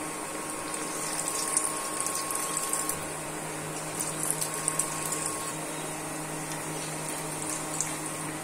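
Lentil-and-onion fritters deep-frying in hot oil: a steady sizzle with scattered crackling pops that come thicker about four seconds in, as more fritter batter is lowered into the oil.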